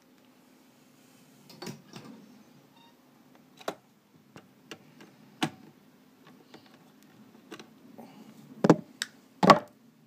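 Clicks and knocks of pliers and wires being handled in a steel amplifier chassis: scattered sharp clicks from about a second and a half in, with the two loudest knocks near the end, over a faint low hum.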